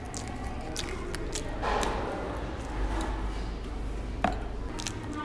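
Eating sounds: chewing, with scattered clicks and rustles of fast-food packaging being handled, over a steady low room hum. A louder rustle comes about two seconds in and a sharp click about four seconds in.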